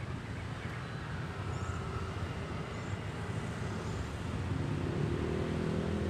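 Road traffic rumble from passing vehicles, with one engine growing louder from about four and a half seconds in.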